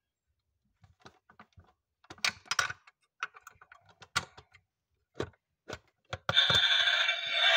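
Small plastic-and-metal clicks and knocks as the tailgate of a 1:24 die-cast Toyota Tundra model is swung shut by hand. A little over six seconds in, the model's built-in sound module starts playing a loud electronic sound effect through its tiny speaker.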